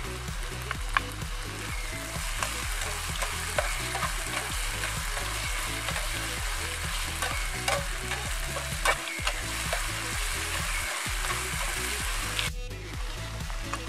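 Food sizzling as it fries in a nonstick frying pan while a metal ladle stirs it, scraping and knocking against the pan with several sharp clicks.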